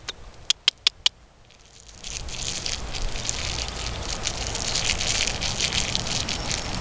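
A quick run of sharp tongue clicks, the clucking used to call a horse, then from about two seconds in a steady rushing, crackling noise that becomes the loudest sound.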